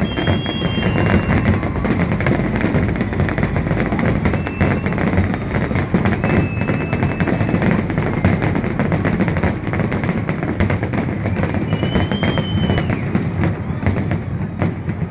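Fireworks bursting in a dense, rapid, continuous barrage of bangs and crackles, with a few brief high whistles over them.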